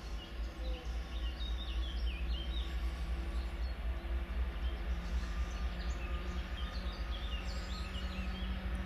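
Diesel locomotive hauling a heavy freight train in the distance: a low engine rumble with a hum that slowly rises in pitch as it approaches. Small birds chirp throughout.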